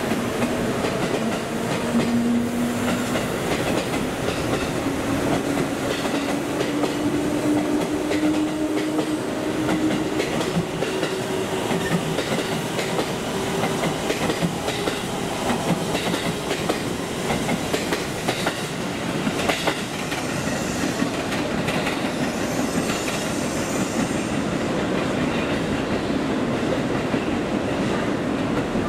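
JR Central 211 series and 313 series electric multiple unit pulling out and running past close by. The wheels clack over rail joints, and the traction motors whine with a pitch that slowly rises as the train picks up speed.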